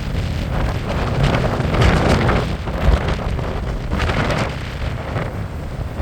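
Wind buffeting the microphone in a heavy, fluctuating rumble, over the rush of sea surf on the beach.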